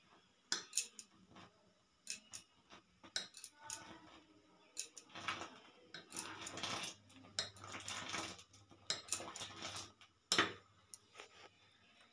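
Metal utensils clinking against a steel pot of hot milk that is being curdled with vinegar to make chhena. The clinks are irregular and busiest in the middle, with one louder clank about ten seconds in.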